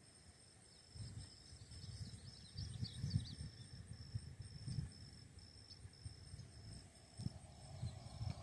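Insects trill in a steady, evenly pulsing chorus, over irregular low rumbles. A brief twitter of chirps comes about three seconds in.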